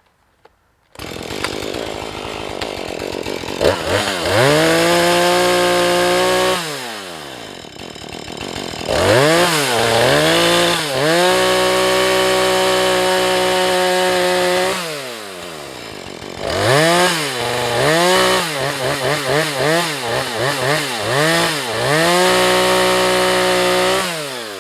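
Husqvarna 435 two-stroke chainsaw coming in at idle about a second in, then revved to full throttle in several long runs with drops back to idle between them, and a string of quick throttle blips in the middle, cutting into a tree that is hung up on its face cut.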